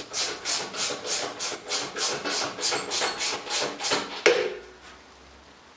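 Ratchet wrench clicking rapidly, about five strokes a second, as the upper bolt of a moped's rear shock absorber is done up tight. It ends in one sharp click about four seconds in, then stops.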